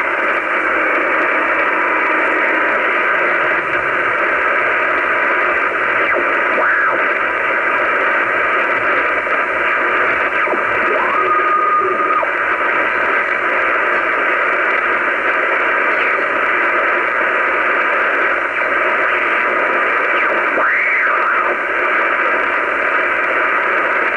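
Shortwave receiver hiss and static with no readable voice. There is a short steady whistle about halfway through, and brief whistles that glide up and back down twice.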